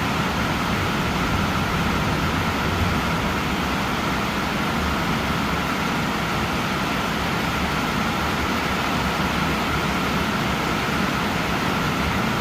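Steady rain falling during a thunderstorm: an even hiss with a low rumble underneath.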